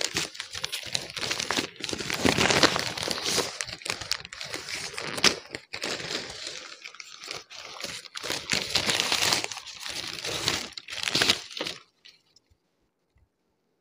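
Gift-wrapping paper being torn and crumpled off a box, in repeated crinkling, tearing rustles that stop abruptly about two seconds before the end.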